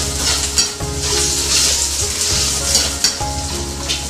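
Velveted chicken pieces (egg white and cornstarch marinade) sizzling in plenty of hot oil in a wok, being oil-blanched only until they turn white. A metal ladle and spatula stir and toss them, and their scrapes and clicks on the wok break through the hiss several times.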